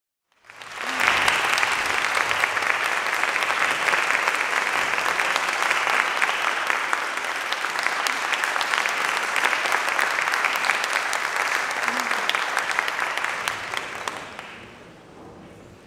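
Concert audience applauding, a dense patter of many hands clapping that dies away about fourteen seconds in.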